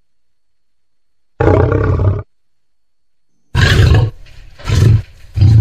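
Lion roars, used as a sound effect: one roar about a second and a half in, then a string of three more from about three and a half seconds in.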